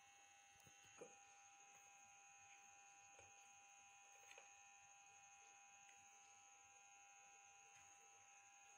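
Near silence with a faint, steady electrical hum or whine held at a few fixed pitches. There are a few faint clicks about a second in and again twice a little after four seconds.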